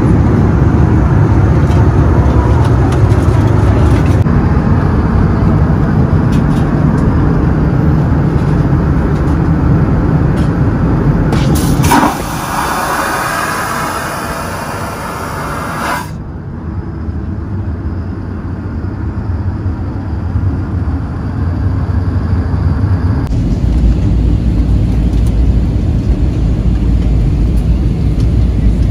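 Airliner cabin noise in flight: a steady low rumble of engines and rushing air, broken by several abrupt cuts. For about four seconds, starting about twelve seconds in, the rumble gives way to a brighter hiss.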